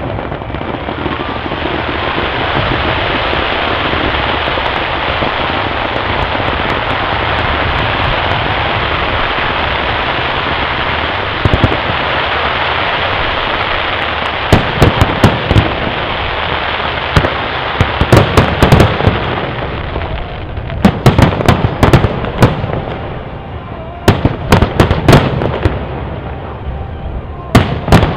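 Fireworks display: a dense, continuous hiss and crackle for the first two thirds, then the sharp bangs of bursting aerial shells, coming in quick clusters of several from about halfway on.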